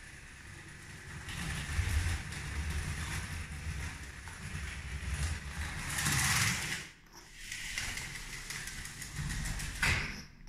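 Lego 12-volt toy train running on plastic track, its wheels rattling along the rails with a mechanical whirr. It gets louder as the locomotive passes close, about six seconds in, and dips briefly just after.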